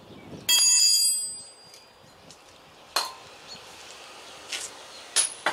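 Metal tools being handled: one loud ringing clink of metal on metal about half a second in, then a few lighter clicks and taps.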